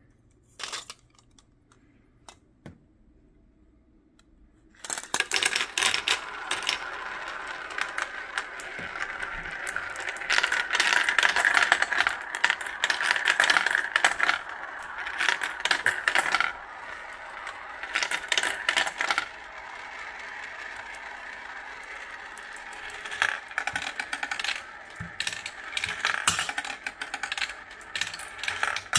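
Glass marbles rolling and clattering through a plastic marble run: a steady rolling whirr as they circle the funnel bowls, with many quick clicks and clacks as they drop through the tubes. It starts about five seconds in, after a couple of single clicks, and swells and fades as batches of marbles pass through.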